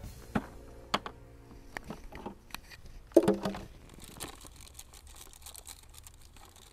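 Blue plastic cooler handled on dirt ground: a few clicks and knocks as it is set down and its lid pulled off, the loudest about three seconds in, followed by crinkling and small clicks as gloved hands rummage inside.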